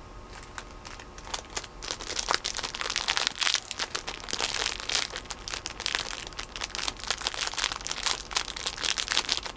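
Plastic bag of Haribo Goldbären gummy bears crinkling as it is handled. There is a dense run of crackles that thickens about two seconds in.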